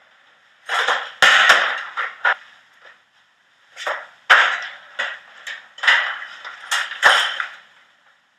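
A run of irregular scuffing noises with four sharp knocks among them, two close together early on, one in the middle and one near the end.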